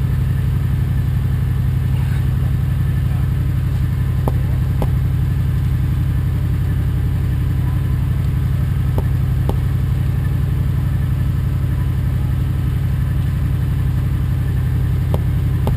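An engine idling steadily in a low, even hum, with a few faint clicks over it.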